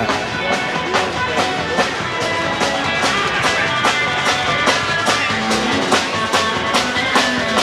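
Upbeat rock music with drum kit and guitar, keeping a steady beat of about two hits a second.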